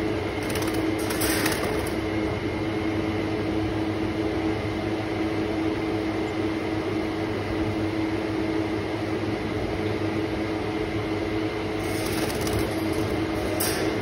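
Steady mechanical hum of a running room appliance motor, with a few held tones over a low rumble. Brief crinkling rustles of a plastic bag being handled about half a second to two seconds in and again near the end.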